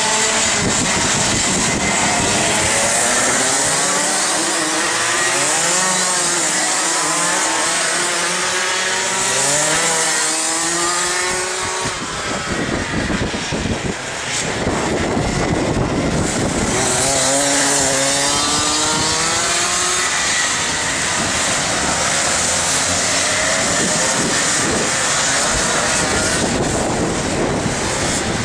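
Racing kart engines buzzing around the circuit, their pitch climbing again and again as karts accelerate through the bends, over a constant rushing noise.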